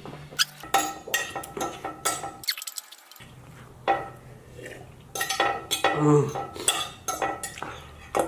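Eating utensils repeatedly clinking and scraping against a dish of noodles during fast eating, in irregular sharp clicks with a brief pause about two and a half seconds in.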